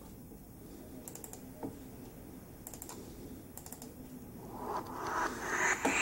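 A few faint clicks of keys on the MSI GT70 laptop's keyboard. In the last second and a half, music fades in through the laptop's speakers and grows loud quickly.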